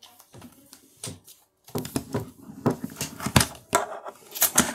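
Books and a spiral-bound notebook being handled and set down on a desk: a few soft taps, then a busy run of knocks, taps and rustles from a couple of seconds in.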